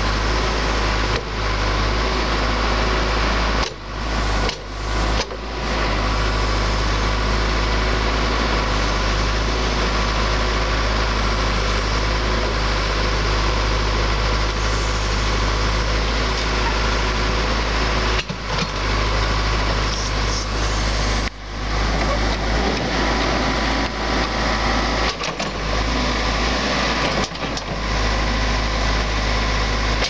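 2001 John Deere 410G loader backhoe's four-cylinder turbocharged diesel engine running steadily while the backhoe arm digs and swings soil, its loud drone dipping briefly several times.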